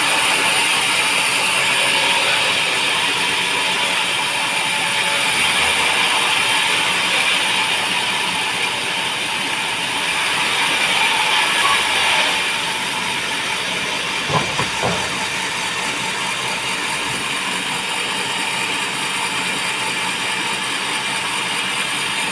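Band sawmill running on teak timber: a steady mechanical hiss and whir that eases a little about halfway through, followed by two or three sharp knocks, after which the machine keeps running.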